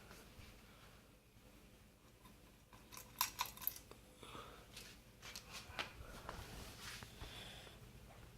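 A 52-inch Litex ceiling fan's small motor runs with a faint, steady hum. Several sharp clicks and rattles come about three seconds in and again around five to six seconds.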